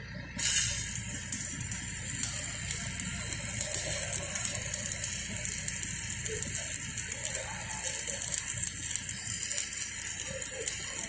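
Stick-welding (shielded metal arc) arc on a steel pipe joint. It strikes about half a second in, then crackles steadily with a dense sizzle of fine pops.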